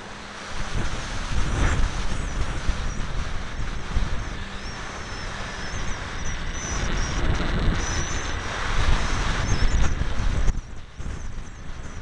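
Wind rushing and buffeting the onboard microphone of a ParkZone T-28 Trojan electric foam RC plane in flight, with a faint, wavering high whine from its electric motor above it. The rush drops suddenly about ten and a half seconds in.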